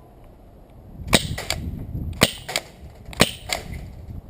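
Euromax SG9000 CO2 airsoft shotgun, set to three-round burst, firing: sharp pops about once a second starting about a second in, each followed a moment later by a fainter click.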